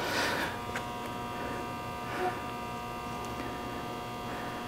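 Steady electrical hum with many fixed tones. A brief rustle at the start, a faint click just under a second in, and a soft scuff about two seconds in.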